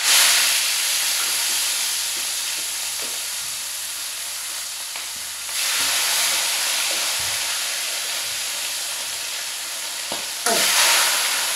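Food sizzling loudly in hot oil in a frying pan, starting suddenly as it goes into the oil. The sizzle jumps up sharply again about five and a half seconds in and again near the end.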